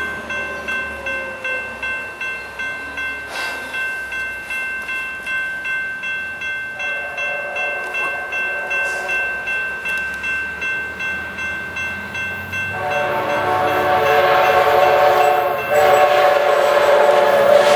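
Railroad grade-crossing bell ringing steadily about twice a second. About thirteen seconds in, an approaching passenger train sounds its horn over the bell: one long blast, a short break, then a second long blast.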